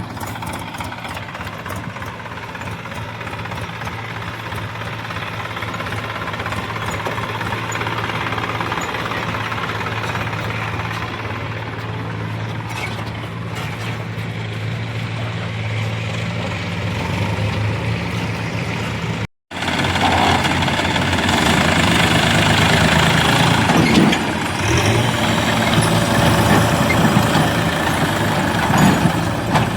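Heavy diesel engine of earth-moving or farm machinery running steadily. After a brief break about two-thirds of the way through, the engine is louder and busier.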